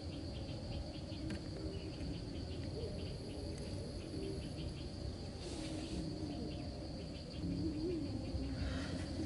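Insects chirping in rapid, even pulses over a continuous high buzz, with a couple of brief rustles.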